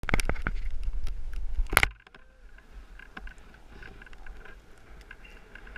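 Wind and handling noise on a skier's action-camera microphone: a heavy rumble with sharp clicks and knocks for about two seconds, then an abrupt drop to a faint hiss with scattered ticks.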